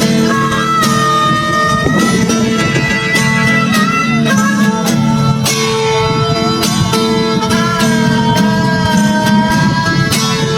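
Background music: a plucked guitar with a held, slightly wavering melody line above it, running steadily.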